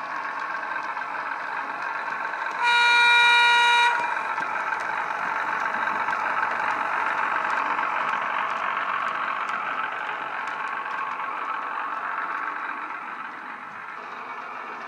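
DCC sound decoder in a model Class 03 diesel shunter, playing through the model's small speaker: the diesel engine running steadily, with one horn blast of about a second a few seconds in. Near the end the engine sound drops away.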